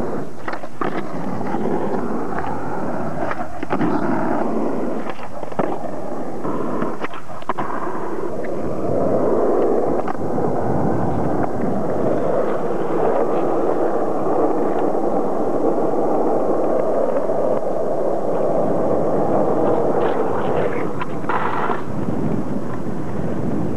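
Skateboard wheels rolling on rough asphalt, a steady grinding rumble, with several sharp clacks of the board hitting the ground in the first eight seconds and again near the end.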